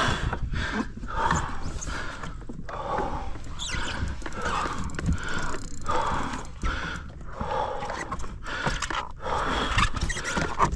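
A man breathing hard in rapid, heavy breaths, over a steady low rumble of wind and water, winded from swimming and climbing back into a capsized kayak.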